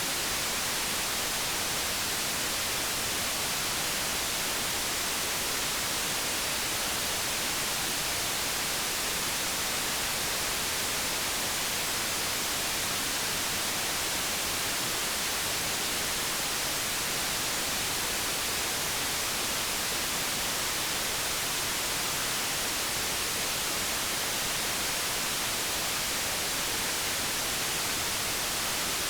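Steady white-noise hiss, even and unchanging, strongest in the high frequencies.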